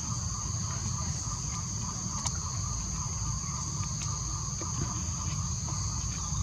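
Steady, high-pitched chorus of insects droning without a break, over a low rumble, with a few faint clicks.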